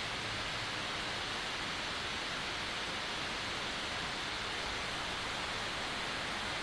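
Steady, even background hiss from the recording's microphone, unchanging throughout, with no other sound.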